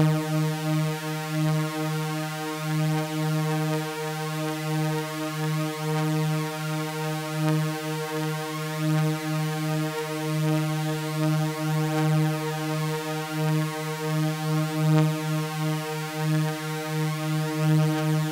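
Synthesizer drone of stacked sawtooth waves held on a low note near 155 Hz, steady and rich in overtones, with a gentle wavering pulse.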